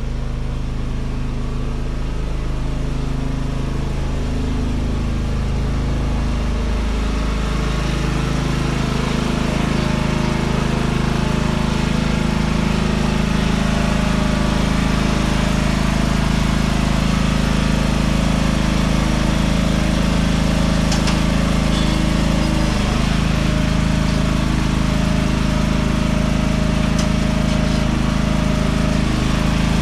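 Small engine of a Weedeater lawn tractor running steadily after a cold start. Its speed shifts about seven seconds in, then holds even.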